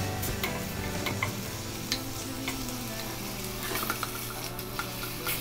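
Pork chops frying in a stainless steel pot, a steady sizzle, while they are turned with tongs, with scattered sharp clicks of the tongs against the pot.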